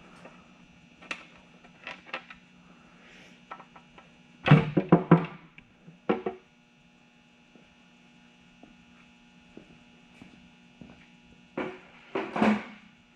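Knocks and clanks of hand tools and metal engine parts being handled on the bottom end of a V8 race engine during teardown, loudest in a quick cluster about four and a half seconds in and again near the end. A steady electrical hum runs underneath.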